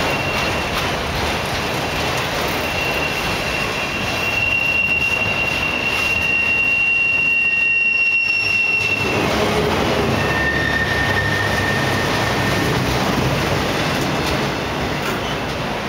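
Loaded autorack freight cars rolling past close by: a steady rumble of steel wheels on rail. A high-pitched wheel squeal holds for about six seconds from near the start, and a lower squeal sounds briefly later on.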